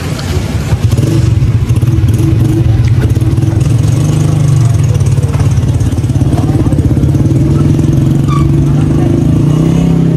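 A small engine running steadily close by, a low, even hum with a fast pulse that sets in about a second in.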